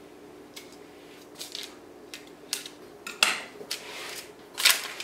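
A run of short scrapes and clicks from a metal offset spatula smoothing frosting on a cake and touching the board beneath it. The sounds get louder near the end as the parchment paper and cutting board are handled.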